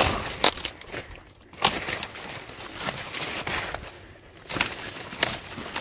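Kale leaves and stems being snapped off the stalk by hand: several sharp snaps with rustling of the large leaves in between.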